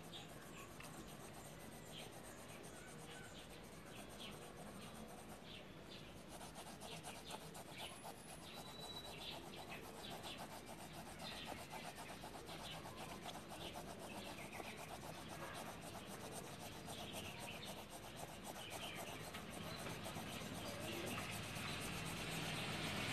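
Graphite pencil rubbing and scratching on lined notebook paper in many short, quick shading strokes. A low background rumble swells near the end.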